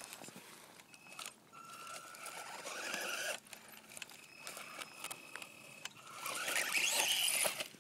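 Brushed electric motor and gearbox of a 1/18-scale RC monster truck whining in bursts of throttle, with the tyres scrabbling over dirt, stones and dry leaves. The loudest burst comes near the end.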